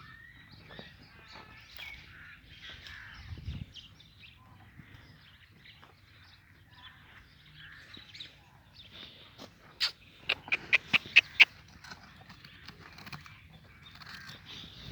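Farmyard sounds: faint scattered animal noises, then a quick run of about seven loud, harsh bird calls a little over two-thirds of the way in, a few each second.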